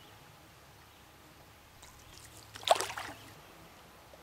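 Canoe paddle stroke on calm water: one short splash about two and a half seconds in, dying away raggedly, against otherwise quiet surroundings.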